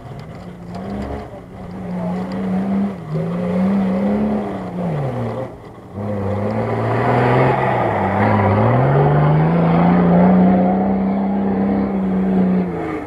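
Off-road 4x4's engine revving hard on a sand track. Its pitch rises and falls several times, then it holds high and loud for the last few seconds before dropping away at the very end.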